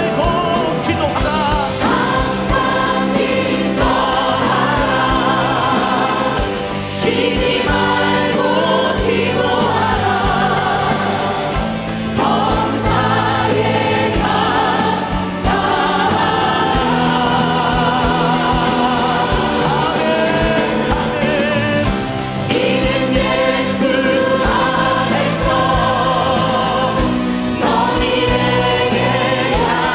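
Church choir and congregation singing a hymn with instrumental accompaniment, with a steady beat and vibrato in the voices.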